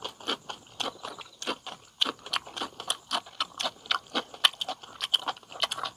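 Close-miked wet chewing and lip-smacking of a mouthful of ramen noodles and octopus, a quick irregular run of sticky clicks and smacks.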